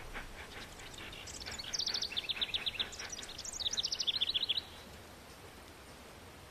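A small songbird singing two quick phrases of rapid, high repeated notes, between about one and four and a half seconds in, over steady outdoor background noise.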